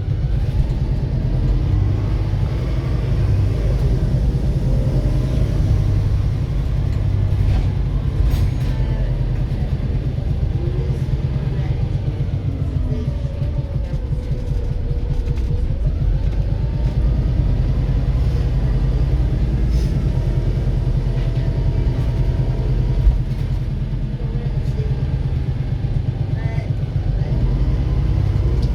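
Volvo B7RLE bus's six-cylinder diesel engine running under way, a steady low rumble whose pitch rises and falls as the bus speeds up and slows. The engine is one noted for knocking.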